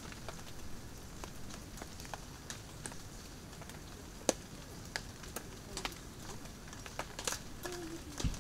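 Wood fire crackling: sparse, irregular sharp pops over a steady low hiss, one sharper pop about four seconds in. Near the end a short low wavering tone and a thump.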